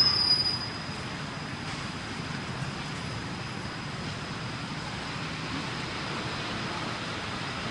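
Steady background rumble and hiss, with a horn's last note fading out in the first half second.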